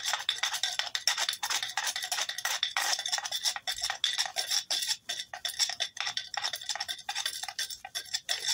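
Fire roll being made: a wooden board rolled hard back and forth over a tinder roll on concrete, a fast run of gritty scraping strokes. The friction is heating the roll toward an ember.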